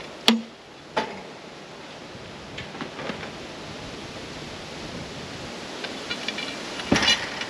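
Steel-mesh boat rack on a camper trailer clanking as it is lowered by hand with a pole: a sharp metallic clank with a brief ring about a third of a second in, another knock a second in, a few light rattling ticks, and a louder double knock near the end.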